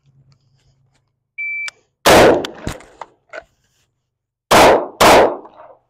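A short electronic beep, then a single rifle shot about two seconds in with a few small clicks after it. Near the end come two shots about half a second apart from a Shadow Systems MR920 9mm pistol. Together they are a rifle-to-handgun transition drill fired at full speed.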